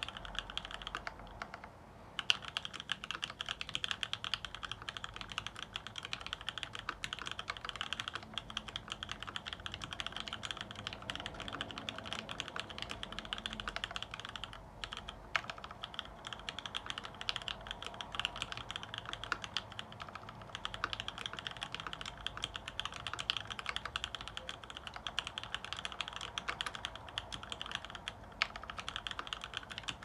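Fast typing on a Montage prototype mechanical keyboard with lubed Wyse Cherry black linear switches on 55 g springs and an aluminium plate: a dense clatter of keystrokes, with short pauses about a second and a half in and about halfway through.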